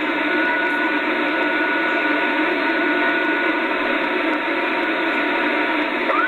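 Hiss and band noise from a Kenwood TS-2000 ham transceiver's speaker, with a steady whistle tone of a carrier held on one pitch until near the end.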